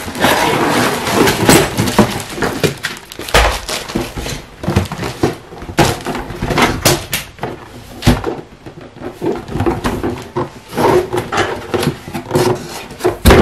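Cardboard box being worked off a plastic-wrapped tabletop basketball game: rustling and scraping of cardboard and plastic wrap with many small knocks, and a couple of heavier thumps.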